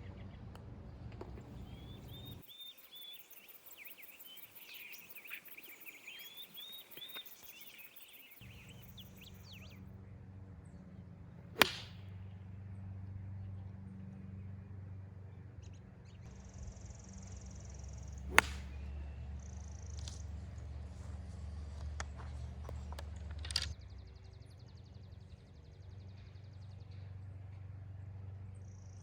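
Birds chirping, then the sharp cracks of wooden-shafted hickory golf clubs striking gutty golf balls: two loud strikes about seven seconds apart, and a softer third one about five seconds later.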